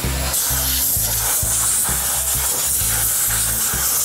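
Steam-cleaner wand spraying down a Hemi V8 engine on an engine stand: a steady, loud hiss of spray that starts just after the opening moment, over background music with a steady beat.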